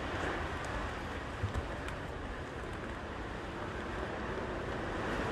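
Strong wind blowing over a mountain ridge, a steady rushing noise buffeting the microphone, with a couple of faint knocks about a second and a half in.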